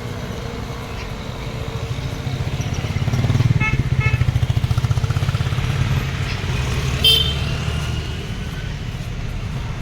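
Road traffic: a vehicle engine running close by swells louder for a few seconds mid-way, with two short horn toots about four seconds in.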